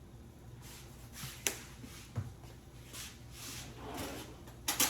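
Black pepper being dispensed over a pot of vegetables in a series of short, scratchy bursts, with a sharp click about a second and a half in and a louder knock near the end.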